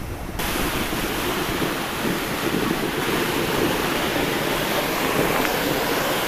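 Water gushing and spraying from a leaking drinking-water pipeline: a steady, loud rush of water that steps up about half a second in.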